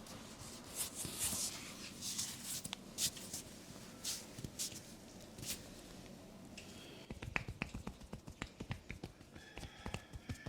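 Hands at work in a massage: rubbing and swishing over skin or cloth, then from about seven seconds in a quick, irregular run of sharp hand taps and slaps.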